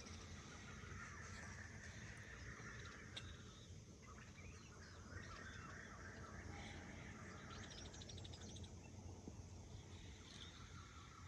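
Faint birdsong: several birds chirping and calling, with a rapid trill about eight seconds in, over a steady low background hum.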